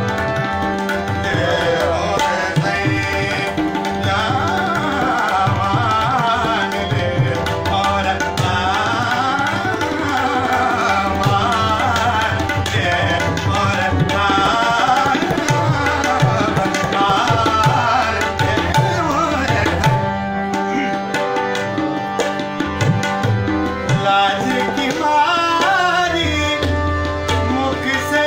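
Tabla playing a steady accompaniment under a melodic line that glides and ornaments over a sustained drone, in a light-classical thumri in raag Pilu. The melody thins out about two-thirds of the way through while the tabla strokes carry on.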